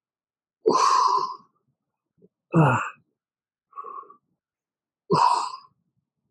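A man breathing out forcefully with each rep of an ab exercise: four sharp exhales in about five seconds. The third is voiced and drops in pitch, like a short grunt.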